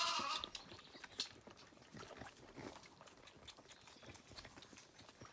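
A Zwartbles lamb bleats once, ending about half a second in. After that come soft scattered clicks and rustles as lambs suck at the bottle teats and shift in the straw, with a sharper click about a second in.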